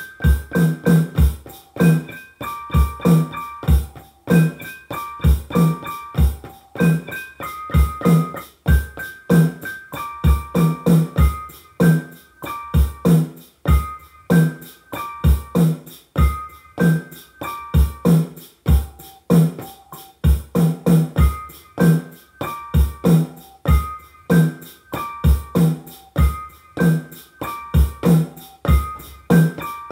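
Hip hop instrumental beat played on a Native Instruments Maschine Mikro Mk1 pad controller: a steady drum pattern of low kick thumps and sharp hits under a repeating melody of short notes.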